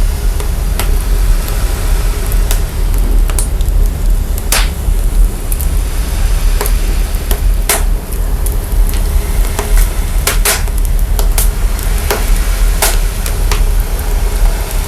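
Burning fire crackling, its sound processed to bring out a constant heavy sub-bass rumble, with irregular sharp pops and snaps scattered over it.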